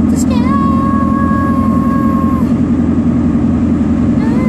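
Steady road and engine drone inside a moving car's cabin. A voice holds one long note for about two seconds near the start.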